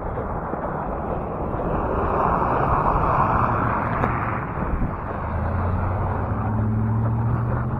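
A motor vehicle passing: its noise swells to a peak about three seconds in and eases off. A low, steady engine hum sets in about five seconds in.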